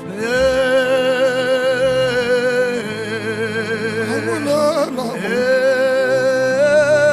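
Worship music: a solo voice holds long notes with wide vibrato over steady sustained backing chords. Near five seconds in it glides through a short ornament and briefly breaks off, then takes up another long held note.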